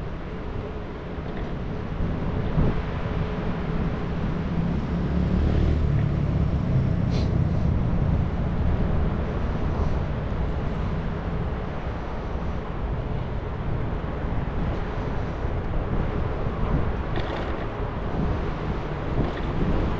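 Steady rumbling rush of wind and rolling noise from a bicycle in motion, strongest in the low end.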